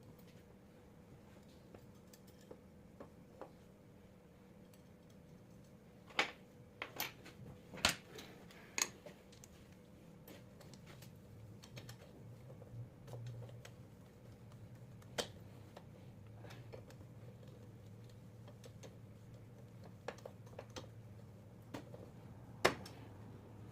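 Scattered light clicks and taps of small parts and tools being handled during an alternator repair, bunched together about a quarter of the way in and sparser after, over a faint steady hum.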